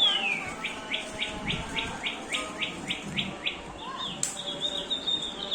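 Electronic sound-activated toy lovebird chirping. It gives a falling whistle, then a rapid even run of short chirps at about four a second, then a held high whistle near the end.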